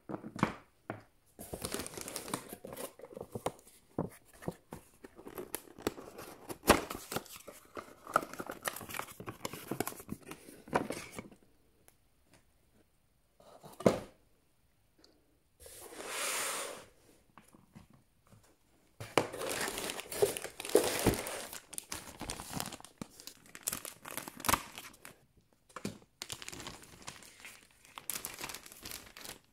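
Clear plastic packaging crinkling and rustling as snorkel masks are unwrapped by hand, in bursts broken by short pauses.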